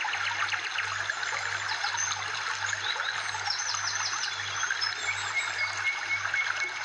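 Flowing water, like a stream, with birds chirping over it: a nature-sounds background track.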